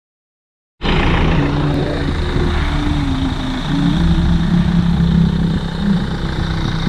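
Isuzu Elf NKR 55 microbus's four-cylinder diesel engine running at low revs as the minibus creeps forward, starting after almost a second of silence, its pitch wavering slightly.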